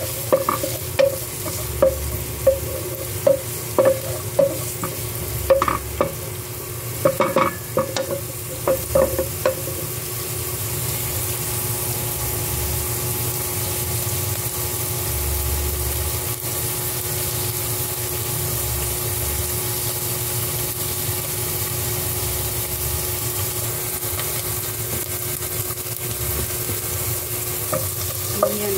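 Chopped onions sizzling in hot oil in a frying pan, stirred with a wooden spatula that knocks and scrapes against the pan about twice a second for the first ten seconds. After that the stirring stops and only the steady sizzle continues.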